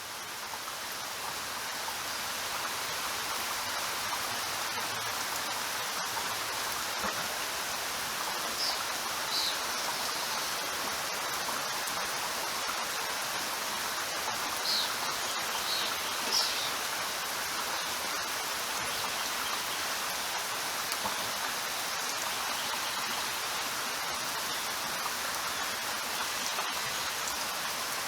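Steady rainfall, an even hiss of rain on surfaces that swells in over the first couple of seconds and then holds level. A few short, faint high chirps sound over it around a third and halfway through.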